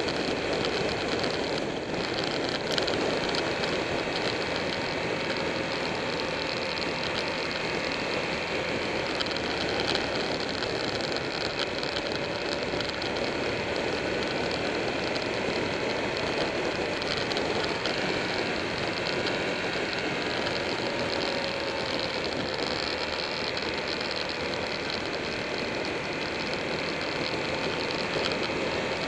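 Onboard sound of a Buell 1125R's V-twin engine running at a steady road speed, mixed with constant wind rush over the bike-mounted camera; the engine note drifts slightly up and down.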